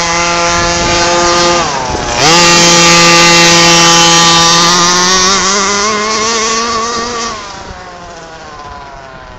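Radio-controlled off-road car's motor running at high revs with a steady buzzing whine. The pitch dips briefly near the start and again about two seconds in, then creeps up before the sound fades away after about seven seconds.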